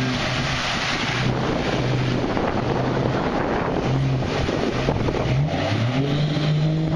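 Jeep Cherokee XJ's 4.0-litre inline-six running under load as it wades through deep muddy water, with the tires churning and water rushing and splashing around the body. The engine pitch holds steady, then climbs about five and a half seconds in as it revs.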